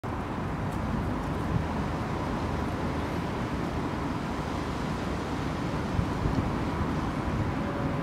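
Steady low rumble of outdoor background noise, with a faint steady high tone through the first half.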